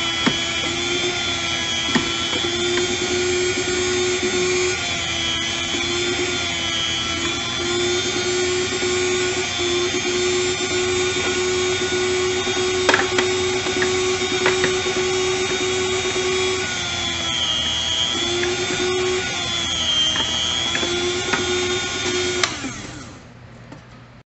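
Electric food slicer's motor and spinning blade running with a steady hum, dipping briefly in pitch a few times, with scattered light clicks. It is switched off near the end and winds down.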